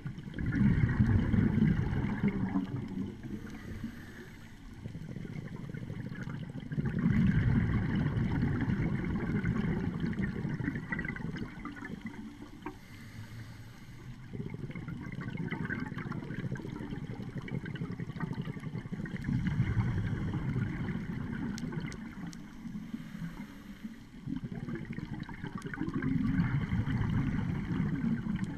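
Scuba divers' regulator exhalations heard underwater: a burbling rush of bubbles that swells up in bursts of a few seconds, about every six to seven seconds, with a low water rumble between breaths.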